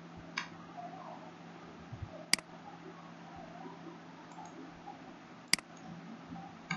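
Three sharp computer mouse clicks a couple of seconds apart, the last two loudest, over a faint steady low hum.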